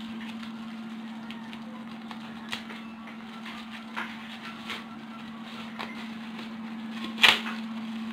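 Plastic packaging wrap being handled: scattered soft rustles and clicks, then one loud crinkle about seven seconds in, over a steady low hum.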